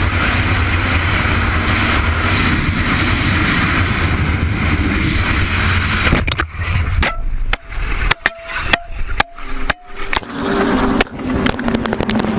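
A car driving, with steady engine and road rumble. From about six seconds in it is broken by a string of sharp clicks and knocks and a few brief beep-like tones.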